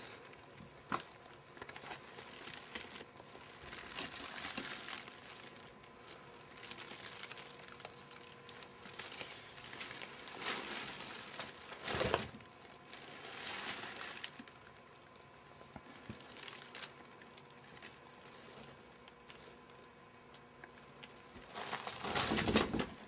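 Rustling and scuffling of pet rabbits moving about on carpet, in short bursts. Near the end there is a louder, longer crinkling rustle as a rabbit reaches a cardboard box.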